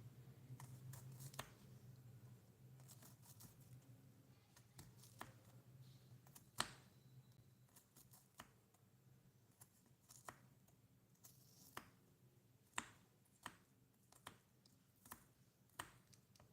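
Faint, scattered clicks and taps of tiny miniature-kitchen utensils being handled, over a low steady hum. The sharpest tap comes about a third of the way in, and lighter taps follow at a loose, uneven rhythm near the end.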